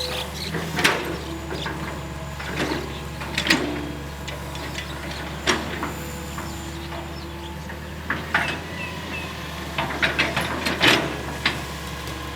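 Hitachi EX220-1 long-reach excavator's diesel engine running steadily, with irregular sharp clanks and knocks from the working arm and bucket, several in quick succession near the end.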